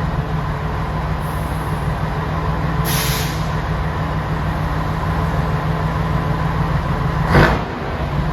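Scania 113 truck's inline-six diesel running with a loud exhaust note, steady and low, which the presenter calls hoarse. A short hiss of air comes about three seconds in, and a louder sudden blast near the end.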